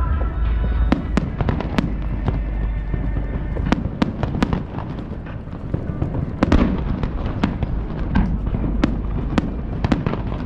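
Fireworks display: many sharp bangs and crackles in quick succession over a continuous low rumble of booms.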